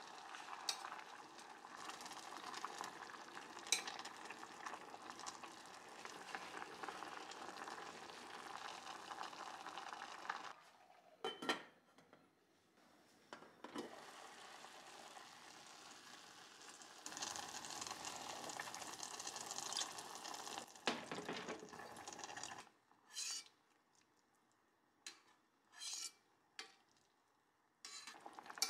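Simmering liquid in a stainless steel pot on a gas stove, bubbling and hissing in two long stretches. Between and after them come sharp clinks of the metal lid and a ladle against the pot.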